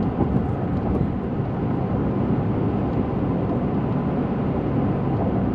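Steady low rumble of a car's road and engine noise heard from inside the cabin while driving.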